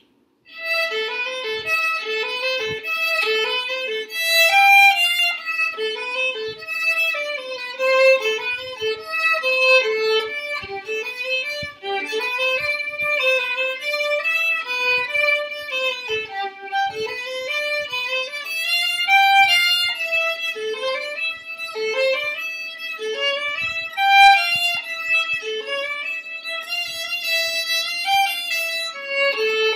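Solo violin bowed in an improvised, continuous melody of short, quickly changing notes, starting about half a second in.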